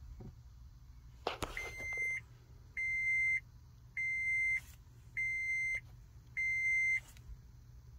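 The 2014 Prius Plug-in's warning buzzer beeps five times at one steady pitch, evenly spaced about a second apart, while the dash warning lights are lit. A couple of clicks come just before the first beep.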